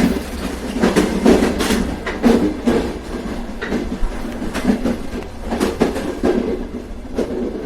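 Train running on the rails: a steady low rumble of the carriage under irregular clattering knocks of the wheels over the track.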